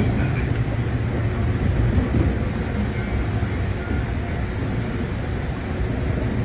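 Kintetsu electric commuter train running, a steady low rumble of wheels and motors heard from inside the car.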